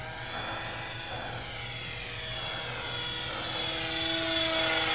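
Electric motor and propeller of a small RC Corsair warbird whining in flight: several tones held together, drifting a little in pitch, and growing louder as the plane comes closer.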